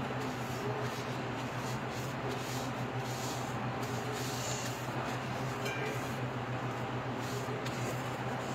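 A steady low hum, with soft, intermittent rustling of plastic wrap being pressed over the top of a glass beverage dispenser.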